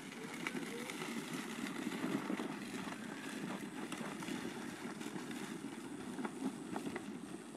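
Wheels of a child's low three-wheel drift trike rolling and sliding over a dirt and gravel drive, a steady gritty rumble with scattered small clicks of loose stones.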